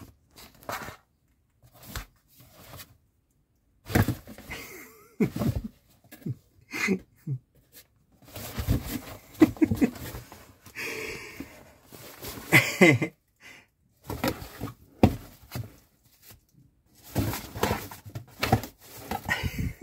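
Cardboard box knocked, scraped and rustled by a cat moving about inside it: irregular thumps and scuffs with short quiet gaps between them.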